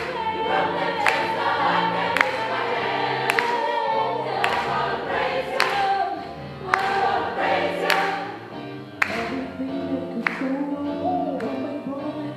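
Gospel choir singing in several parts, with a sharp beat about once a second.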